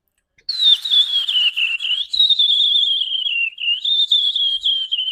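Pet love bird calling: one long, high, wavering whistle-like call that starts about half a second in and carries on with small quick wobbles in pitch.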